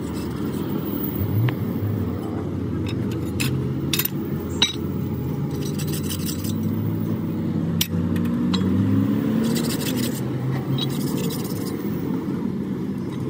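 Hand blade scraping rust off a steel truck leaf-spring leaf in short rasping stretches, with a few sharp metal clicks, over the steady low rumble of an engine running.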